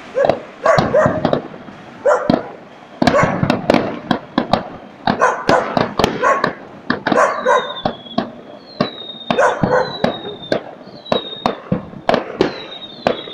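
Fireworks display: sharp bangs and crackling bursts in quick clusters, with a dog barking between them. Short falling whistles repeat from about halfway.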